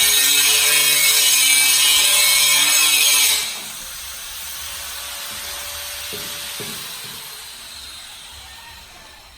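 Power tool running with a loud high hiss over a steady hum, as when cutting, stopping abruptly about three seconds in; fainter background noise follows, with a couple of light knocks.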